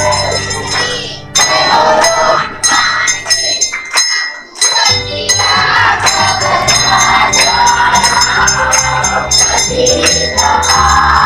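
Brass hand bells ringing rapidly and continuously through aarti singing by a group of voices, with a low beat underneath. The sound drops away for about a second around four seconds in, then carries on.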